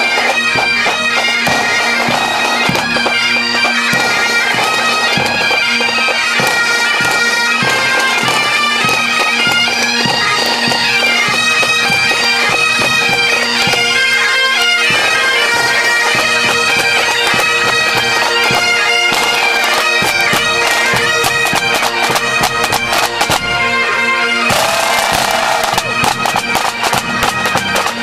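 A pipe band playing a march: Great Highland bagpipes with their steady drones under the chanter melody, and drums beating along in quick strokes. A brief burst of rattling noise about three-quarters of the way through.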